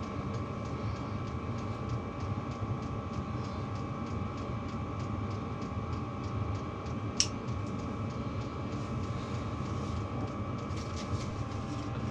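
Steady mechanical hum with a faint held whine and light, evenly spaced ticking, broken once by a sharp click about seven seconds in.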